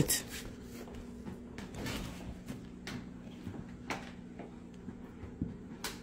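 Handling and untangling an unplugged vacuum cleaner's power cord: a few scattered light clicks and knocks as the cord is pulled and shaken.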